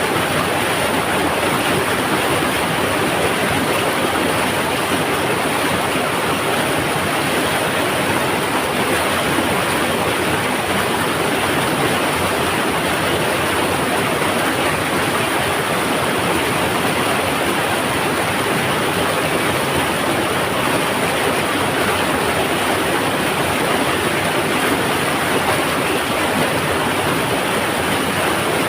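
Mountain river rushing over rocks: a loud, steady roar of water with no let-up.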